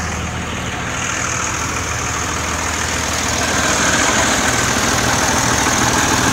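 Dodge Ram's 5.9 Cummins turbo-diesel idling steadily. It grows louder and brighter about four seconds in.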